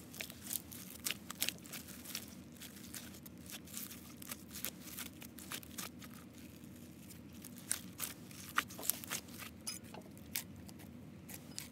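Clear slime being kneaded by hand in a ceramic bowl: many irregular sticky clicks and pops as the stiff, just-activated mix of clear glue, hand soap and borax solution is squeezed and pulled apart.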